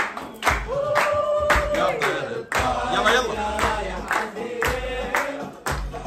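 A song with voices singing over a steady beat of about two strokes a second, with hands clapping along.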